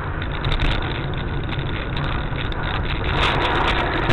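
Car engine and road noise, steady and low, with a few faint clicks. The noise grows rougher and a little louder about three seconds in.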